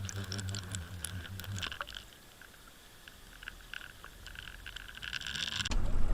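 Water sound picked up by a submerged camera: a low steady hum with crackling and popping water clicks for the first couple of seconds, then quieter hissing and clicks. Near the end it switches abruptly to a louder low rumble of wind on the microphone.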